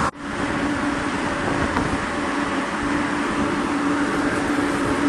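Mesh-belt ginger dryer machine running: a steady mechanical hum with a constant low drone. The sound drops out for an instant right at the start.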